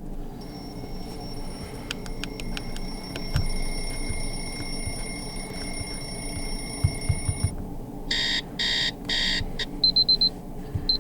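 Preset alarm tones of an Infinix Hot 11S NFC smartphone playing through its speaker one after another: first a steady high ringing with a few ticks, then, after a short pause, four bursts of rapid alarm-clock beeping followed by short high beeps.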